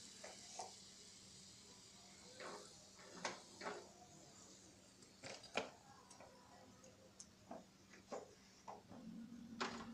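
Faint, scattered ticks and light taps over a low steady hum: a metal slotted spatula working in a small frying pan as fried punugu fritters are lifted out of shallow oil.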